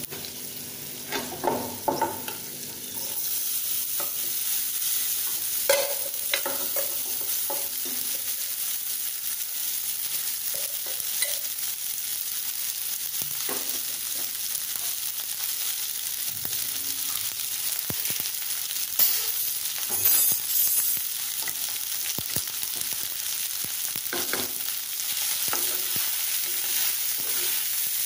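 Cooked rice tipped into a hot kadai of oil-fried mustard, dals and curry leaves and stirred in with a steel slotted spoon. A few clattering knocks of bowl and spoon at first, then a steady sizzle with the spoon scraping and clinking against the pan now and then.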